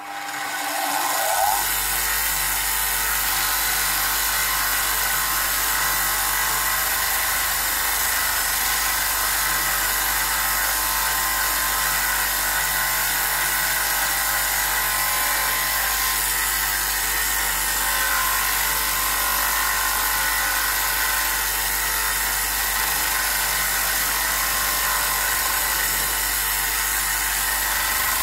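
Scheppach bench grinder switched on and spinning up, its pitch rising for about a second, then running steadily with a low hum while metal parts of an old clothes iron are held against its wire brush wheel to clean them.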